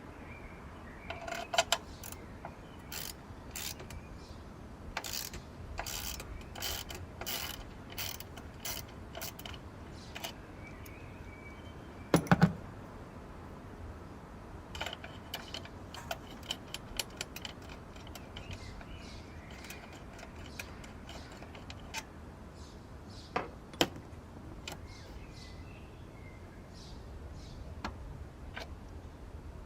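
Hand tools working on engine parts: runs of sharp metallic clicks like a socket ratchet, and one louder metal knock about twelve seconds in.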